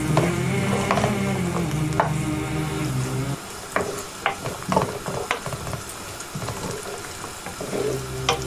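Diced carrots and onions sizzling in hot oil while a wooden spoon stirs them, scraping and knocking against the pot several times in the second half. A steady low hum runs underneath for the first three seconds or so.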